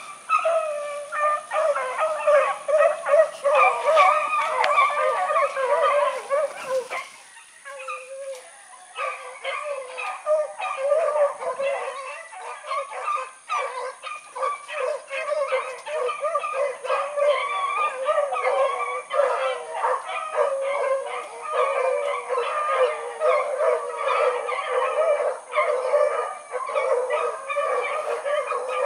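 A pack of beagles baying in full cry, many voices overlapping as they run a rabbit on its scent trail. The chorus drops off briefly about seven seconds in, then picks back up.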